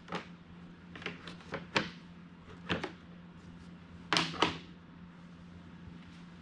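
Plastic radiator shroud being handled and fitted back onto a Rieju MR 300 dirt bike over new radiator guards: scattered light clicks and knocks, with the loudest, a close pair, about four seconds in.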